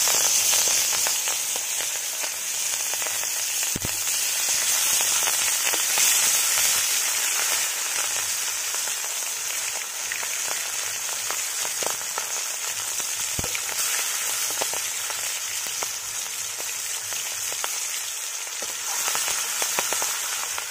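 Pieces of aar catfish frying in hot mustard oil in a kadai: a steady sizzle with scattered crackling pops.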